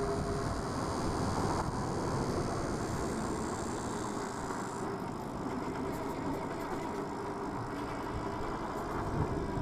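Super73 S2 electric bike being ridden: steady wind rush and tyre rumble, with a faint steady whine from its electric motor. A high hiss drops away about five seconds in.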